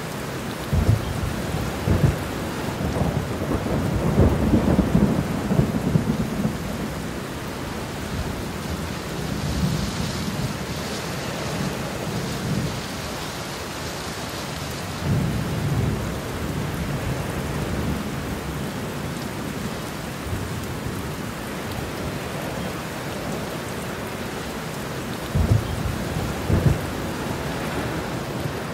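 Heavy rain falling steadily, with thunder rumbling: a long peal over roughly the first six seconds, another about halfway through, and two sharp cracks near the end.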